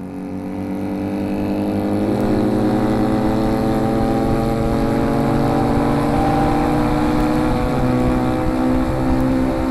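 Two identical motorcycle engines running side by side at the same road speed, their exhaust notes synchronised so that they sound almost like one engine. The steady engine note fades up over the first two seconds and then holds.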